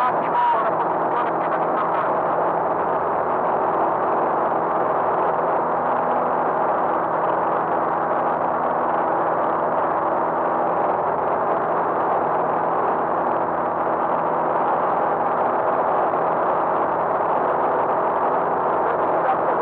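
Light aircraft's piston engine and propeller running steadily in cruise flight, heard from inside the cockpit as an even drone.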